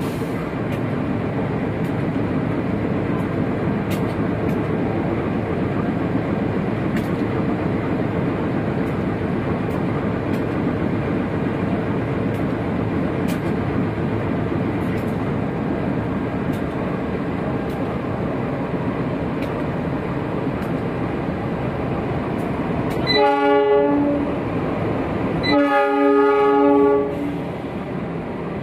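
CC204 diesel-electric locomotive hauling a passenger train as it approaches and passes, with a steady rumble of engine and wheels. Near the end the locomotive sounds its horn twice, a short blast and then a longer one.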